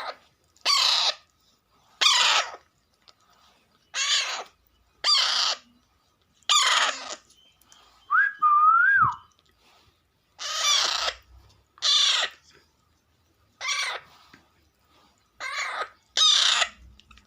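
Baby Alexandrine parakeets giving short, harsh squawking calls, about ten of them, spaced one to two seconds apart; these are the hungry chicks' begging calls. About eight seconds in comes one clearer call that rises and falls like a whistle.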